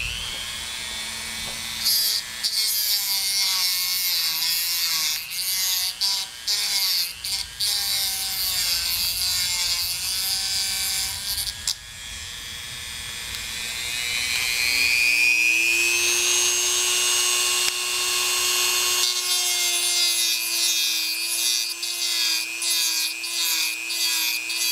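Dremel rotary tool running at high speed, its cutting wheel grinding in bursts against the steel outer race of a crankshaft bearing. Midway the grinding eases, the tool's whine climbs in pitch and holds, then the grinding bursts return near the end. The race is stuck fast to the crankshaft, which the owner suspects was welded on by an overheated, worn-out bearing.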